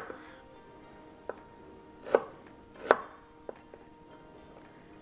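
Chef's knife cutting ginger on a wooden cutting board: a few separate, irregular knife strikes against the board, the loudest two about two and three seconds in.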